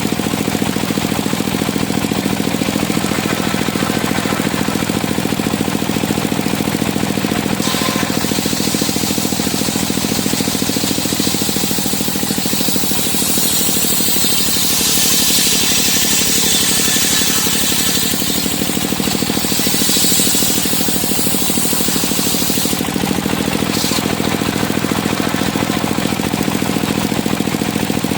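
Engine-driven circular sawmill running steadily. After about eight seconds a harsh, high cutting noise builds as the blade goes through wood, loudest in the middle, and stops sharply near the end.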